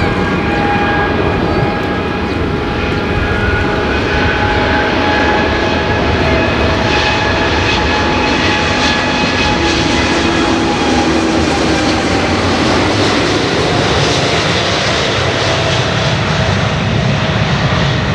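Jet engines of a Boeing 787-9 airliner, Rolls-Royce Trent 1000 turbofans, running loud: a rumble under a steady whine of several high tones that slide slightly lower in the second half.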